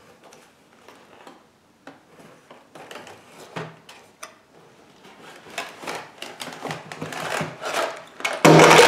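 Toy packaging being pulled open by hand: a busy run of crinkles, rustles and small clicks that grows louder, then a loud clatter near the end as the toy engine falls.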